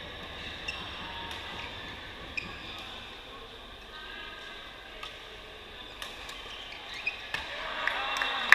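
Badminton hall ambience: a murmur of distant voices with scattered sharp taps of rackets hitting shuttlecocks and short shoe squeaks from play on the other courts, growing busier near the end.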